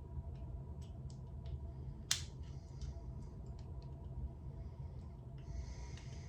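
Small plastic clicks and snaps from the clips of a ceiling fan pull-chain switch housing being pried apart, with one sharp snap about two seconds in and a brief scraping rub near the end, over a steady low hum.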